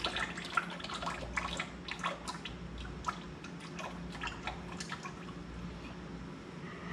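Used diesel engine oil dripping and trickling from the Kubota M6040's removed spin-on oil filter into the drain pan as the filter is tipped to empty it, a run of small irregular drips.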